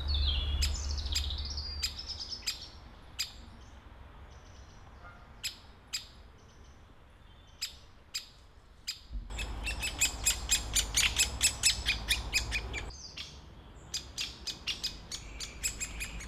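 Great spotted woodpecker chicks begging from the nest hole with sharp, high chirping calls: single calls a second or more apart at first, then a fast chatter of about five calls a second for several seconds from about nine seconds in, picking up again near the end.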